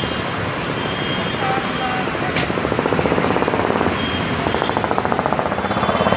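Road traffic with motorcycles and scooters running close by. From about halfway a nearby two-wheeler engine adds a fast, rapid putter over the traffic.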